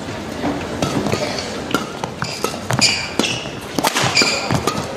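Badminton rally: sharp racket hits on the shuttlecock several times, mixed with short squeaks of court shoes, over a steady background of arena crowd noise.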